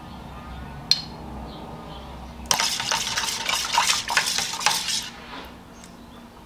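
A metal spoon stirring a thick sauce briskly in a stainless steel bowl, with rapid clinking and scraping against the sides for about two and a half seconds. One sharp clink comes about a second in.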